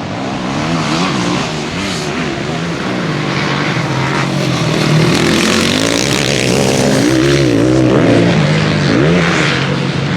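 Supermoto racing motorcycles on track, their engines revving up and down through the gears, growing louder as they come closer.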